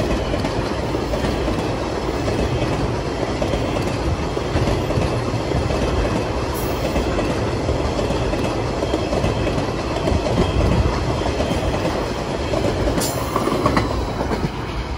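A train of empty steel log wagons rolling past, with a steady rumble and rattle of wheels on the rails.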